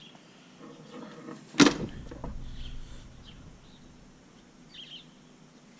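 A pickup truck door shut once, a single heavy thump about a second and a half in with a short low rumble after it.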